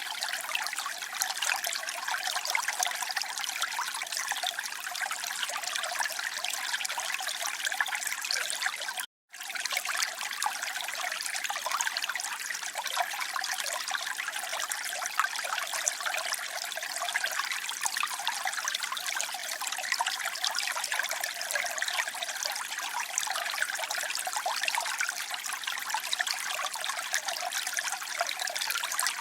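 Flowing water trickling steadily, with a brief cut to silence about nine seconds in.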